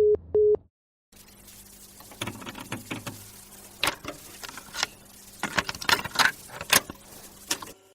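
Telephone busy tone: short beeps of one steady tone that cut off within the first second. Then irregular rustling and scattered sharp clicks over a low steady hum.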